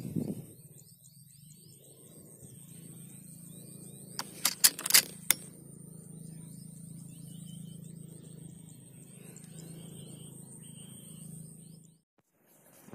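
A steady low hum with faint chirps above it, broken by a quick run of five or six sharp clicks and knocks about four to five seconds in; the sound cuts off near the end.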